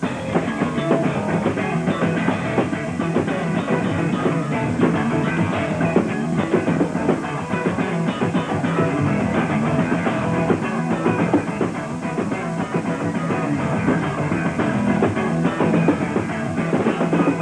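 Live rock instrumental: electric guitar playing lead lines and scale runs over a bass holding a steady E pedal note, with drums. The guitar moves scales over the pedal for an almost Lydian flavour, a modal ear-training exercise.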